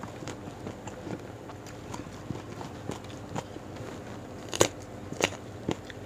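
Chewing and biting of crunchy raw vegetables close to a clip-on microphone: soft wet mouth clicks throughout. Near the end come two louder crunches about half a second apart.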